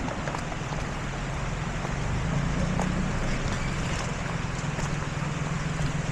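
Off-road vehicle's engine running with a steady low hum under an even rushing hiss, with scattered small clicks.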